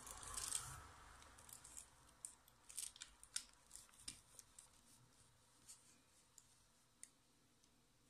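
Faint handling sounds of a braided USB charging cable: a soft rustle at first, then a scatter of small clicks and ticks as the plug is worked into a keypad mobile phone's charging port, with one last click near seven seconds in.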